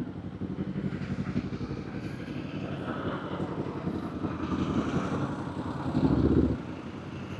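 Kawasaki Z400's parallel-twin engine running low in the revs with a pulsing exhaust note, with a short louder burst of throttle about six seconds in.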